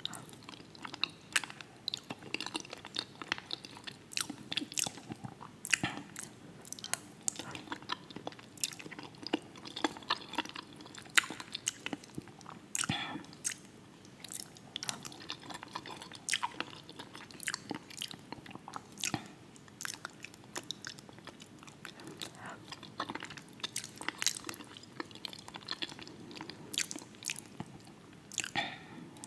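Close-miked chewing of soft food (fried fish, potatoes and cabbage in a creamy sauce), a dense, irregular run of wet mouth clicks and smacks.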